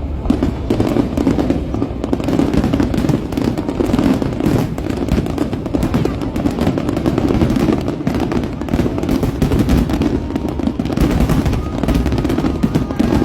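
Aerial fireworks going off in quick succession: a dense, continuous run of overlapping bangs and booms with no break.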